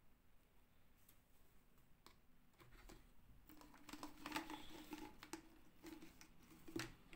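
A hand rummaging in a clear plastic jar of doll clothes: soft crinkling, with light plastic clicks and knocks. It is faint and sparse at first and grows busier about three seconds in.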